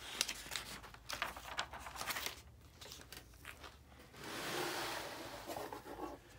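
Paper pages of a spiral-bound book being turned by hand: a run of short crinkles and rustles, then a longer swishing rustle about four seconds in.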